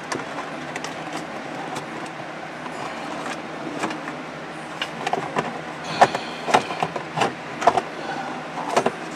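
Irregular clicks and knocks of hands and parts working behind a car dashboard, over a steady hiss, coming thicker and louder in the second half.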